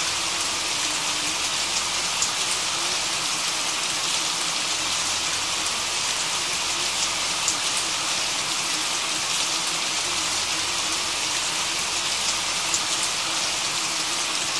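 Steady rain, an even hiss with a few faint drop ticks.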